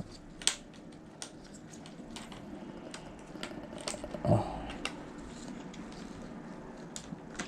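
Scattered plastic clicks and taps as keycaps are pulled off and pressed back onto a Corsair K95 Platinum mechanical keyboard, with a short voice sound about four seconds in.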